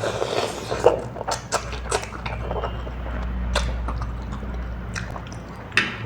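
Close-miked chewing and eating sounds, with irregular sharp clicks and wet smacks.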